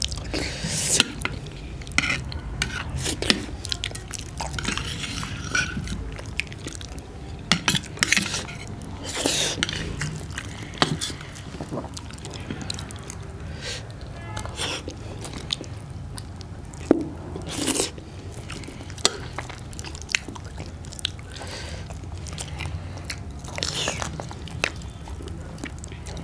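Close-miked eating of soft, wet food (wheat dhido with curry): chewing, lip smacking and slurping, broken by irregular sharp clicks and smacks.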